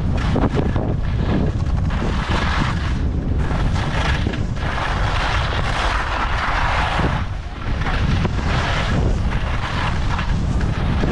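Skis hissing and scraping over packed, tracked snow during a fast downhill run, swelling with each turn and loudest about five to seven seconds in, with a brief lull after. Wind buffets the action camera's microphone with a steady low rumble throughout.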